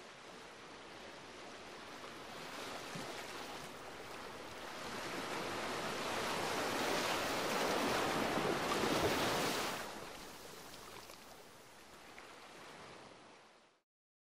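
Sea surf washing in a steady rush that swells to its loudest about two-thirds of the way through, then eases and fades out just before the end.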